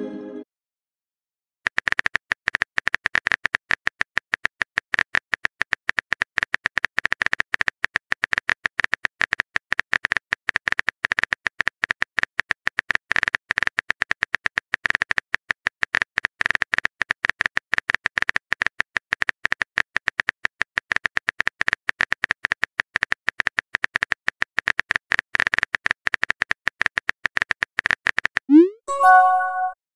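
Rapid phone-keyboard typing clicks from a texting-story app, a dense steady stream as a message is typed out. Near the end they stop, and a short rising swoop and a brief chime mark the message being sent.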